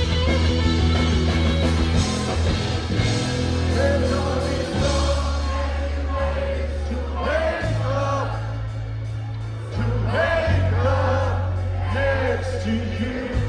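Live rock band playing: sustained bass notes, electric guitar and drums, with a male lead vocal singing over them from about halfway through.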